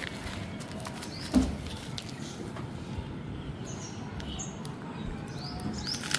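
Cat crunching dry kibble, with a few short high chirps in the background and one brief thump about a second and a half in.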